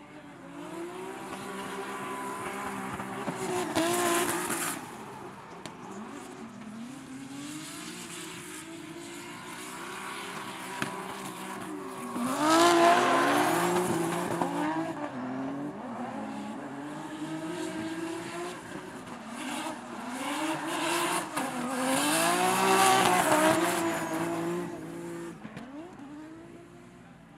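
Drift car engine revving hard, its pitch rising and falling, with tyres screeching as they spin up smoke. It comes in three louder swells.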